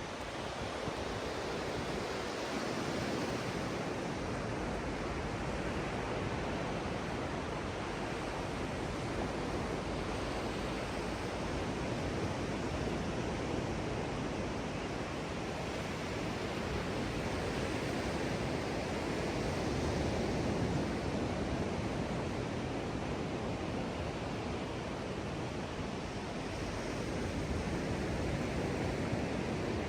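Ocean surf washing onto a beach: a steady rush of waves that swells louder now and then.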